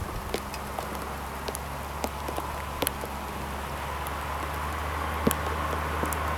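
Kubota RTV 1100 utility vehicle's three-cylinder diesel engine running with a steady low drone that slowly grows louder, with scattered sharp ticks and clicks over it.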